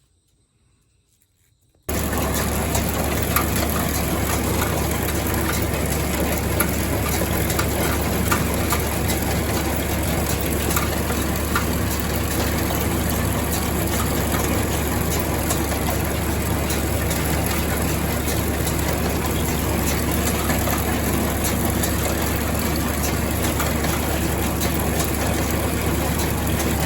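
Tractor engine running steadily, starting abruptly about two seconds in after near silence.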